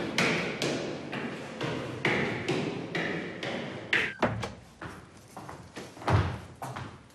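Footsteps on a hard floor, about two a second, then a door's latch clatters about four seconds in and a door thuds shut near the end.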